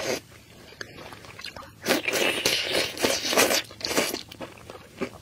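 Close-miked mukbang eating sounds: a person biting into and chewing soft braised food, with wet, crackly mouth sounds. They are loudest from about two seconds in, after a quieter pause.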